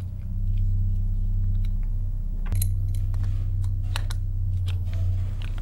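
Small clicks and taps of a metal fitting being handled with needle-nose pliers, over a steady low hum.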